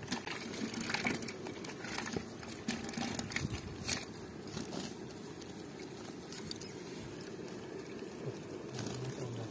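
Rustling and crinkling of a nylon cast net and grass as hands pick small fish out of it, with scattered light clicks and crackles.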